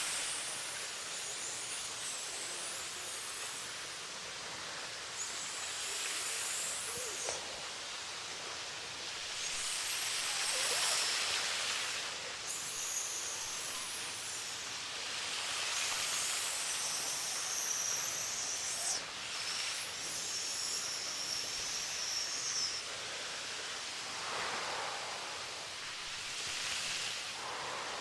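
Steady hiss of a small waterfall splashing onto a rock ledge, with brighter swells of noise every few seconds.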